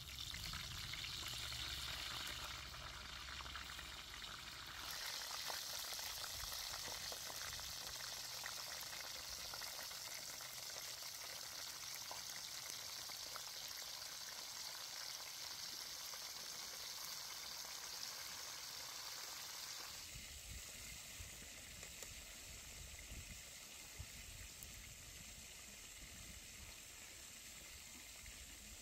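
Food sizzling as it cooks: a steady hiss with fine crackles, shifting in tone about 5 and 20 seconds in.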